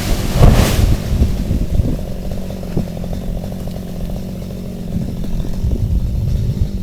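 Stihl gas chainsaw: a short loud burst about half a second in, then the engine idling steadily after the cut.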